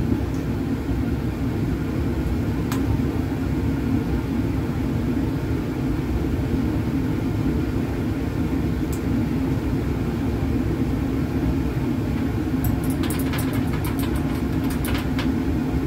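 Steady, even fume hood ventilation noise, a low rumble of airflow and fan. Near the end comes a run of light clinks as glassware on the bench is handled.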